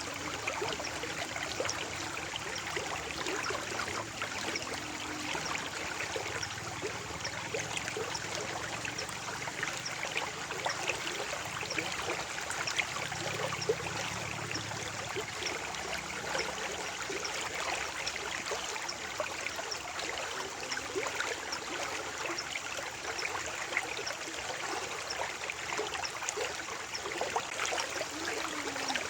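Water flowing and trickling in a stream, a steady babble dense with small splashes and droplets.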